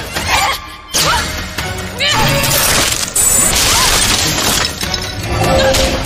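Cartoon action sound effects: several crashes with glass-like shattering as blocks break apart, over background music.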